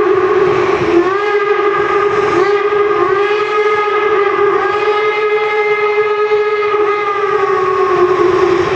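Steam locomotive whistle blowing one long, continuous blast, a chord of several pitches, its pitch sagging and sliding back up a few times as the whistle is worked, then cutting off near the end.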